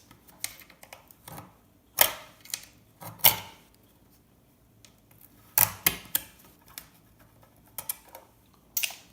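Irregular sharp clicks and small clatters of IC chips being prised off a RAM circuit board, the loudest about two and three seconds in.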